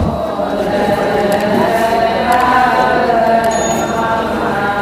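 A group of voices chanting together in unison, the chorus part of a traditional Adi call-and-response festival song.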